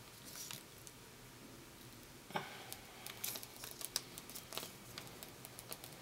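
Faint small clicks and light rustling of fingers handling a laptop screen's ribbon-cable connector while pushing it into the LCD panel's socket, with a sharper click a little over two seconds in and a run of small clicks near the middle.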